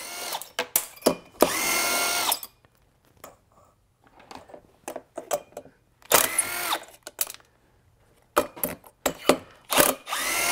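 Cordless power driver spinning out the Allen screws holding a two-stroke leaf blower's cylinder: several short whirring bursts, each winding up and then down in pitch, with small metal clicks in between.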